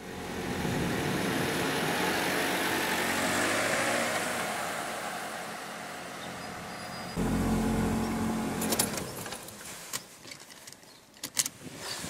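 Small hatchback car driving past, its road and engine noise swelling and then fading away. About seven seconds in, a lower engine rumble cuts in for a couple of seconds, followed by a few sharp clicks and knocks.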